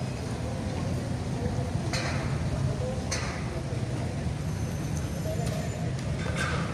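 Outdoor street ambience: a steady low rumble with faint distant voices, and a few short sharp sounds about two and three seconds in and again near the end.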